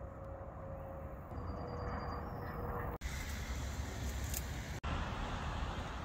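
Low, steady rumble of a distant aircraft flying over, with a faint steady hum in it. About three seconds in the sound cuts abruptly to a louder, even rushing noise, with another abrupt cut near five seconds.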